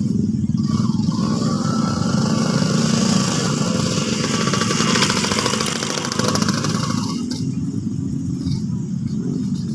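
A small engine running steadily, of the kind heard from a motorcycle.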